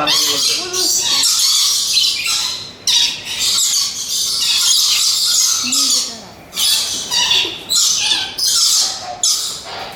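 Many parrots screeching in harsh, high, overlapping bursts close by, with a couple of short lulls.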